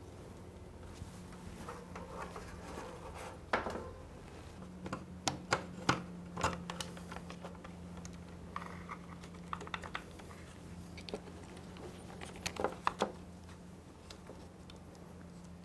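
Scattered light clicks and taps of hands handling motorcycle wiring and plastic connectors, in small clusters, over a steady low hum.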